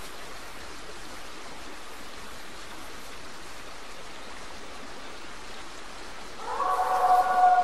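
Steady hiss of background noise, then about six seconds in a group of wild canids starts howling together, several long held howls at different pitches rising in over one another.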